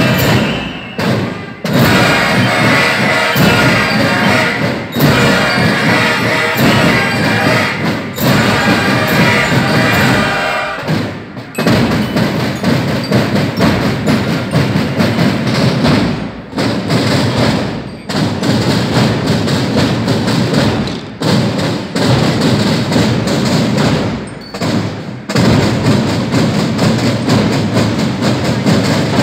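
Massed bugle-and-drum corps playing: bugles and drums sound together for about the first ten seconds, then the bugles stop and the drums go on alone, playing a cadence with several short breaks.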